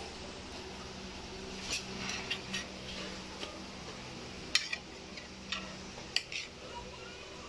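Metal spoon clinking and tapping against plates while food is served: scattered sharp clicks, some in quick pairs, over a steady low hum.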